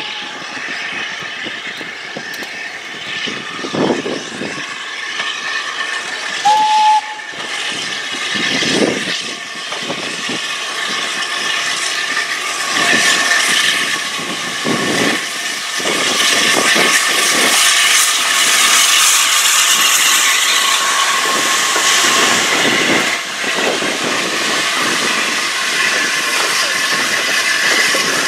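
Steam locomotive getting under way: a brief whistle about seven seconds in, a few slow, widely spaced exhaust beats, and a steam hiss that grows louder through the second half.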